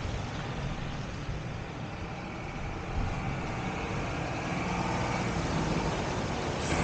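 A vehicle engine idling steadily, a low hum under an even rush of noise.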